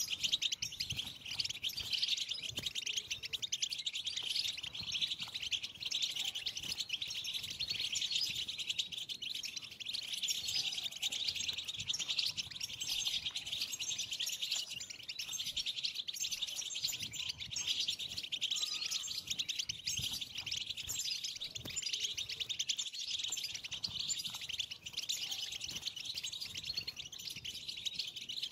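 European goldfinches twittering: a dense, unbroken stream of quick high chirps, the excited twitter that breeders call 'btbta'.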